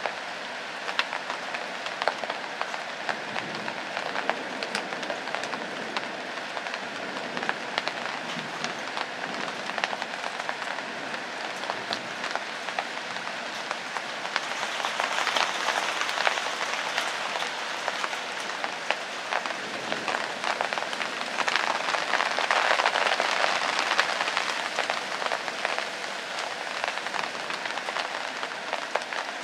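Rain falling steadily, with many sharp drips throughout; it grows heavier about halfway through and again for a few seconds later on.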